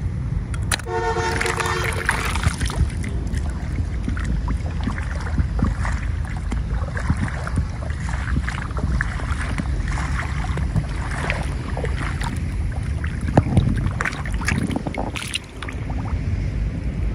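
Wind rumbling on the microphone outdoors, with scattered scuffs and clicks of footsteps and handling. A short horn-like toot sounds about a second in.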